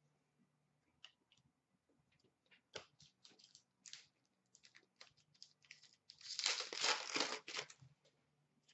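Scattered light clicks of trading cards being handled, then a trading-card pack's wrapper torn open with a crinkling rip lasting under two seconds, in the second half.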